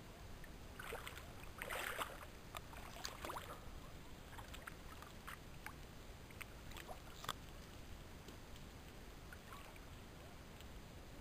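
Shallow water splashing and sloshing as people move on hands and knees in a muddy stream, loudest in the first few seconds. Then come a few faint scattered clicks over low steady background noise.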